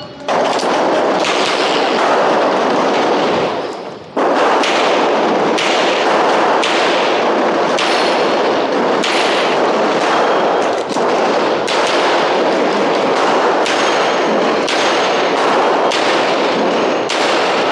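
Metro Arms 1911 pistol firing a long string of shots, about one a second, each followed by a loud echo that fills the gaps, with a brief lull about four seconds in.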